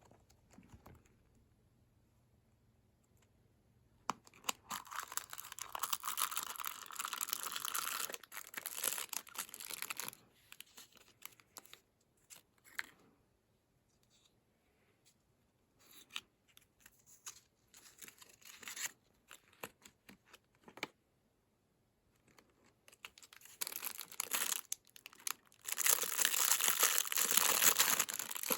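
Packaging being torn open and crinkled by hand, in several bouts of tearing and rustling with short pauses between.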